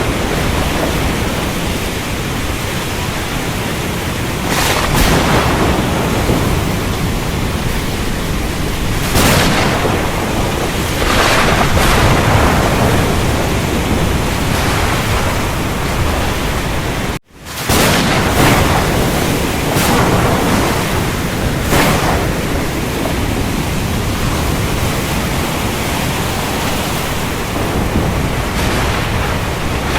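Steady heavy rain with thunder rumbling, and several brief surges of louder noise. The sound cuts out sharply for a split second about halfway through, then comes straight back.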